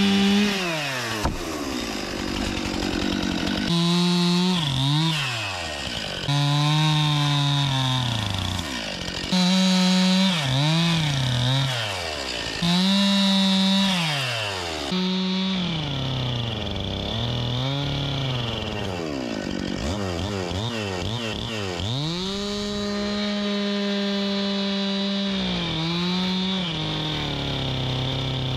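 Two-stroke chainsaw bucking a small, dry dead ash log into rounds. The engine runs at full throttle, and its pitch sags each time the chain bites into the wood, then drops back and revs up again between cuts, about five cuts in a row.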